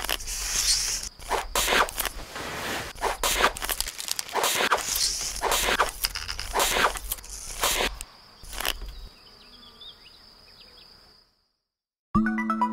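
A string of short, sharp rustling noises, about one or two a second, over a steady high buzz. They stop about eight seconds in, leaving a faint hum with a few small chirps. After a moment of silence, an electronic melody starts just before the end.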